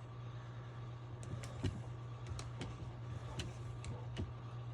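Scattered light metal clicks and knocks as a hydraulic crimping tool is shifted into position on a flexshaft cable's end fitting, over a steady low hum.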